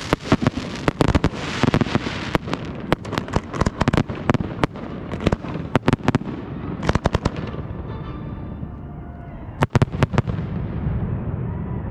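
Fireworks display: a dense barrage of sharp bangs over crackling, thinning out about seven seconds in, then a last cluster of bangs near ten seconds.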